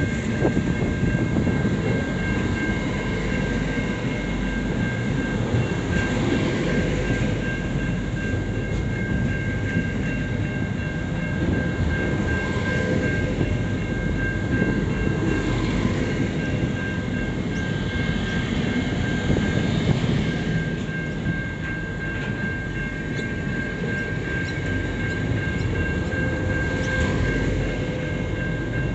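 Container wagons of a long intermodal freight train rolling past close by: a steady rumble of steel wheels on rail with clickety-clack over the rail joints. A steady high ringing tone runs through it.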